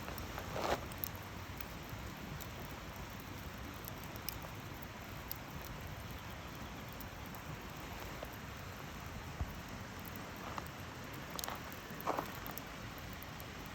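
Campfire burning: a steady hiss with scattered small crackles, and a couple of louder snaps about a second in and near the end.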